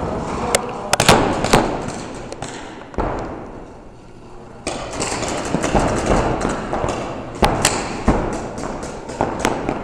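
Paintball markers firing: sharp, irregular pops, several close together in the first second and a half and another cluster from about seven seconds in, over a steady rushing noise.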